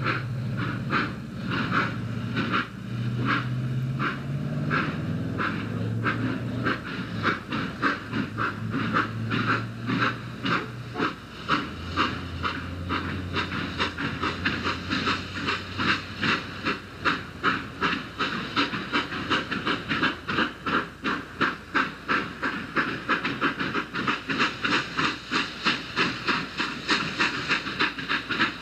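Exhaust chuffs of three steam locomotives working hard together at the head of a train, over steam hiss, the beats quickening from about two to about four or five a second as the train picks up speed.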